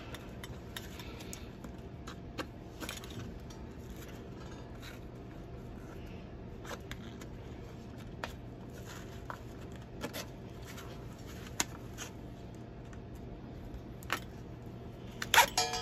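Faint handling sounds of nylon webbing rustling and scraping as it is worked through a padded harness shoulder strap, with scattered light clicks of metal hardware such as needle-nose pliers and the steel backplate. A steady low hum runs underneath.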